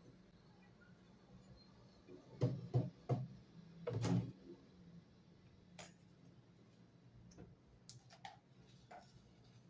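Metal clunks and clicks inside a washing machine drum as a homemade socket key is worked on the loosened centre bolt and the bolt is taken out. There is a cluster of sharper knocks a few seconds in, then lighter scattered clicks.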